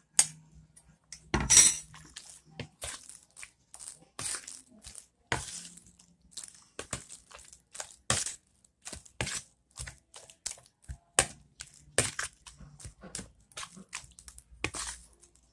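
Metal spoon stirring and mashing a wet mixture of ground pork, raw egg and grated potato in a plastic bowl: irregular wet squelches and scrapes about one to two a second, with a louder one about one and a half seconds in.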